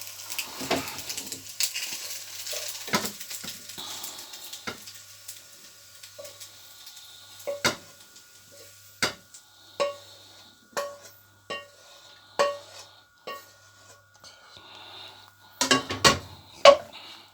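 Vegetable pasta sizzling in a frying pan, the sizzle fading over the first few seconds, with a metal spoon stirring and scraping. Then a series of sharp, ringing clinks of the spoon knocking against the cookware about once a second as the pasta is served out, with a burst of louder knocks near the end.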